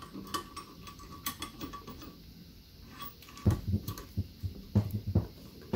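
Light metal clicks and clunks as a shifter is fitted by hand onto a Tremec TKO 600 transmission's shift mechanism. About halfway through, a run of louder, deeper knocks follows.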